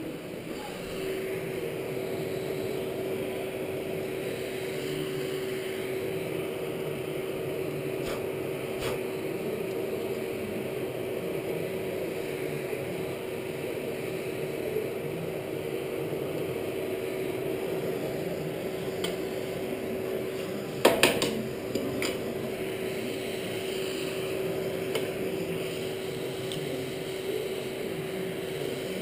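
Steady motor hum from the coal forge's blower, setting in about a second in, with a few light metal clinks and a short clatter of metal on metal about two-thirds of the way through.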